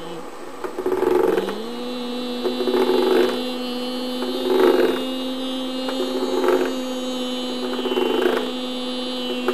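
A person humming one long, steady, wordless tone that steps up in pitch about a second and a half in and then holds. Over it come short rasping strokes, about every one to two seconds, as a hand rubs across a ridged object.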